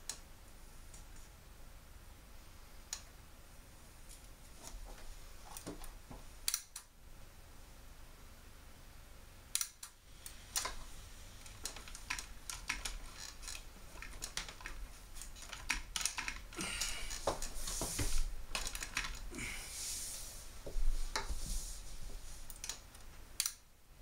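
Irregular small clicks and rustling from hands working on a plasma TV's circuit boards, connectors and ribbon cables. The clicks are sparse at first and grow busier and louder in the second half.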